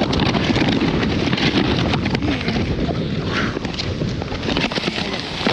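Wind rushing over the microphone during a fast sled run down a snowy hill, with a constant clatter of small knocks and scrapes from the sled over the snow.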